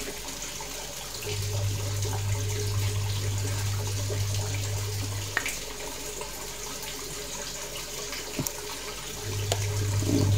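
Steady rushing noise like running water, with a low hum that starts about a second in, stops about halfway and comes back near the end; two faint knocks.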